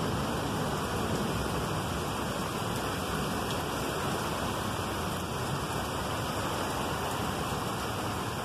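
Heavy rain pouring down steadily in an even, continuous hiss.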